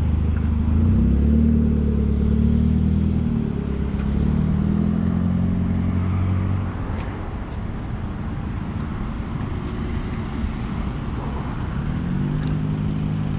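Road traffic passing close by: a vehicle engine running steadily for the first half, then a lower hum of passing traffic, and another engine rising in pitch as it pulls away near the end.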